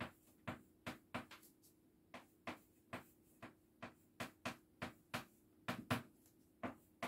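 Chalk tapping and scratching on a blackboard as the strokes of a Chinese character are written: a quick series of short, sharp ticks, about three a second, with small uneven pauses between them.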